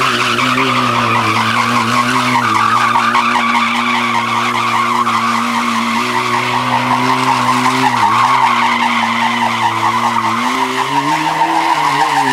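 Honda CBR sport bike's engine held at a steady high rev during a long wheelie, with a brief dip about eight seconds in and the revs climbing near the end, over a rushing tyre noise.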